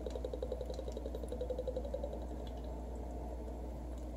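Chocolate almond milk pouring from its container into a glass blender jar, a rapid, even gurgle that stops about two seconds in.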